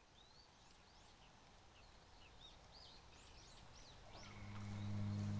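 Faint outdoor ambience with many short, arched bird calls, chirping repeatedly. About four seconds in, a low steady drone fades in and becomes the loudest sound.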